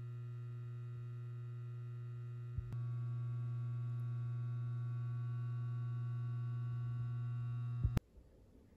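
A steady low electrical hum with even overtones. It steps up in loudness with a click about two and a half seconds in and cuts off abruptly near the end.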